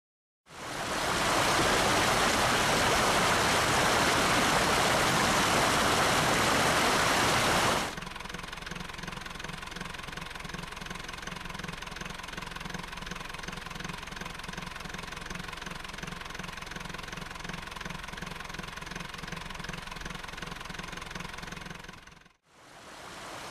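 A loud, even rushing noise for the first eight seconds or so, then a boat engine running steadily with a constant hum, which stops abruptly near the end.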